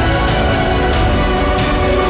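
Background theme music with a steady beat and sustained tones.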